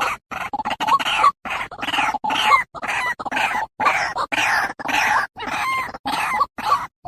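Male white-breasted waterhen (ruak-ruak) calling: a rapid, unbroken run of harsh repeated calls, about two a second, which stops right at the end.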